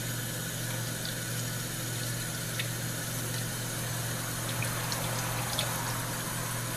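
Tap water running steadily over a lionfish gut held in a gloved hand and splashing into a stainless steel sink as the gut is rinsed. A steady low hum sits underneath.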